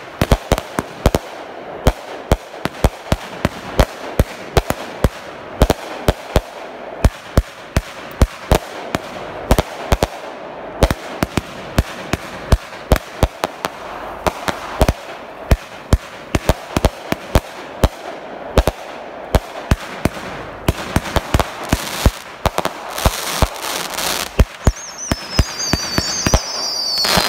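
Stinger brand Yellow Jacket fireworks cake firing its 49 shots: a rapid string of sharp reports, several a second at times, over a steady hiss and crackle. Near the end a high, wavering tone falls in pitch over the shots.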